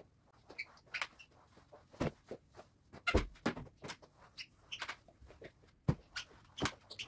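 Irregular light clicks and knocks of household cleaning work, with a few short squeaks.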